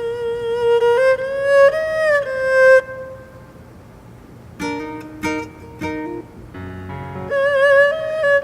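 Instrumental music: a bowed string instrument plays a sliding, sustained melody, breaks off for a few short plucked-string notes about halfway through, then comes back near the end.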